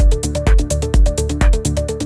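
Minimal techno at about 124 BPM: a four-on-the-floor kick drum about twice a second with hi-hat ticks between, under a deep bassline and a short repeating synth figure.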